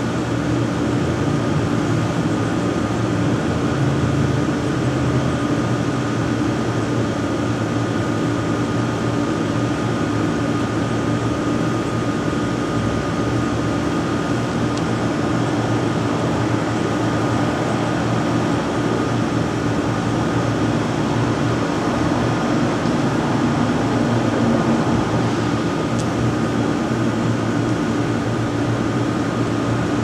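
Model 5T outdoor warning siren winding down: a steady mechanical whir with a low hum and a faint high tone, with no clear drop in pitch within these seconds.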